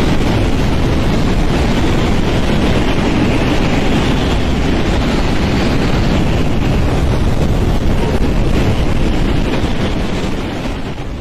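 Wind sound effect: a steady rush of strong wind with no gusts or breaks, starting to fade out near the end.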